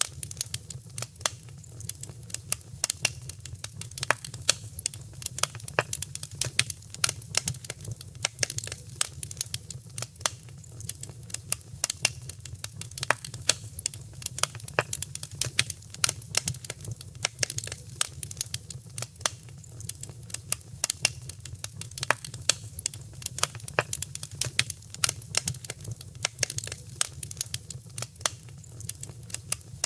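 Wood fire crackling in a fireplace: dense, irregular sharp pops and snaps over a steady low rumble of burning.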